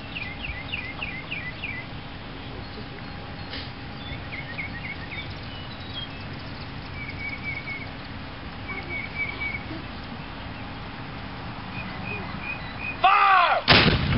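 Birds chirping in short runs of quick falling notes, then near the end a single loud blast from a Civil War–era field cannon fired with half a powder charge.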